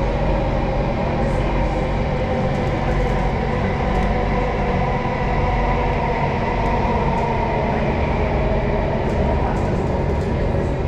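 Interior of a Singapore MRT Circle Line train running through a tunnel. Wheels on the rails make a steady rumble under an even motor whine, with faint ticks over the top.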